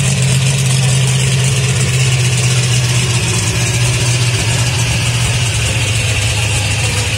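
Monster truck engine idling: a steady low drone that holds at the same pitch and loudness, with no revving.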